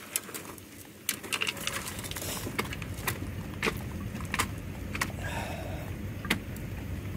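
Irregular sharp clicks and taps of hard parts being handled, over a steady low rushing noise that comes in about a second in.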